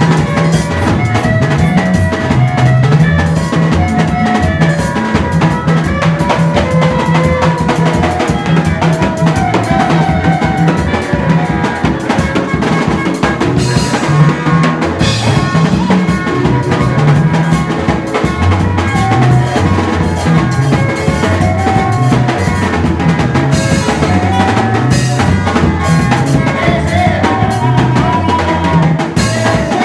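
Music with a drum kit playing a steady beat, bass drum and snare, under a moving bass line and melody.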